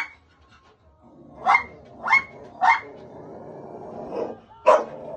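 Dog barking: three short sharp barks about half a second apart, then another near the end.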